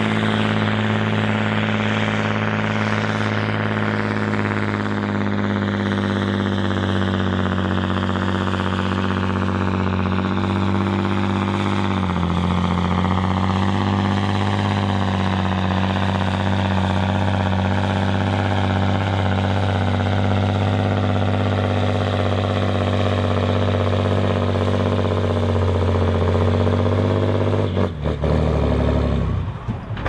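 John Deere 8530's six-cylinder diesel pulling hard under full load against a tractor-pulling sled, with a thin whine that slowly falls in pitch. The engine note sags briefly partway through. About two seconds from the end it drops suddenly to a lower, lighter note as the tractor comes off the load at the end of the pull.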